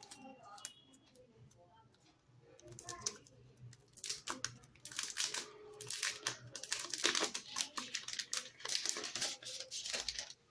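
Plastic packaging crinkling and tearing as a retail phone box is unwrapped by hand, with dense irregular crackling for the last six seconds or so.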